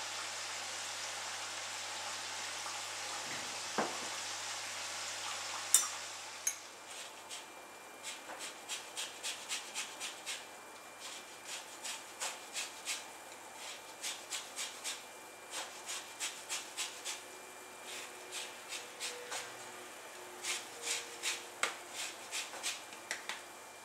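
Liquid trickling steadily through a sieve for about six seconds, then a sharp knock. After that, a fine rasp grater scraping the peel off a lemon in quick repeated strokes, about two a second.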